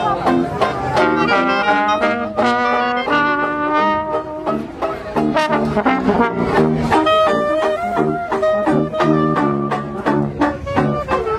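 Small street brass band playing lively jazz-style music: trombone and clarinet carrying the tune over a sousaphone bass, with a steady beat.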